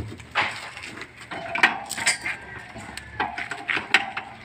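Several sharp metallic clanks and knocks of a steel bar and hand tools against a concrete mixer's wheel hub while its bearing is being worked loose.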